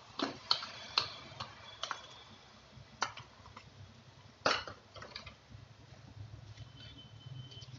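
A steel spoon and a bowl clink and knock against an aluminium saucepan while soup mix is emptied in and stirred. There are about ten sharp taps at uneven intervals, most of them in the first five seconds, and the loudest comes about four and a half seconds in.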